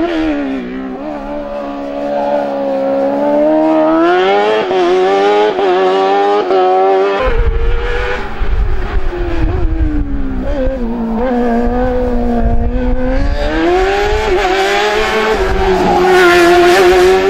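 Sports-prototype race car engine revving through cone chicanes, its pitch dropping under braking and climbing again under acceleration, several times over. A low rumble joins about seven seconds in.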